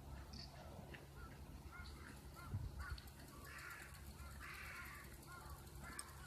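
Crows cawing repeatedly, a string of short calls with two harsher, longer caws in the middle, over a steady low hum.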